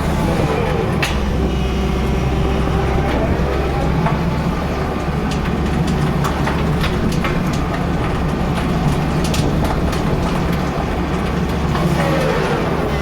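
Tata Hitachi excavator running, with scattered sharp knocks from the swing ring gear over the steady engine hum and a whine that glides in pitch near the start and again near the end. The operator takes the knocking for a broken gear tooth.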